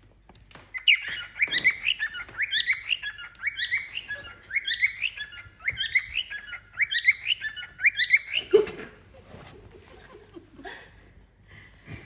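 Young male cockatiel singing: a quick, chirpy phrase of rising notes repeated about once a second for some seven seconds, then stopping. This is the kind of song a male cockatiel uses to court.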